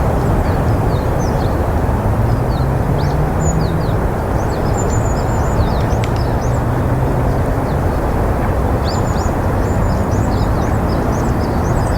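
Many small birds chirping: short, high, falling notes overlapping one another, over a loud, steady low rumble of background noise.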